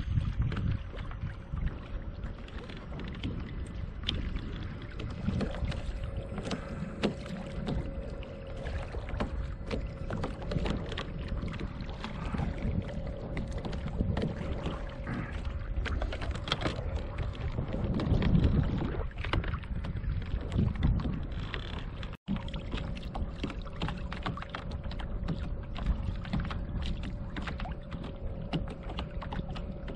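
Wind buffeting the microphone and choppy water slapping against a motorized kayak's hull as it moves along, with a faint steady hum from its motor.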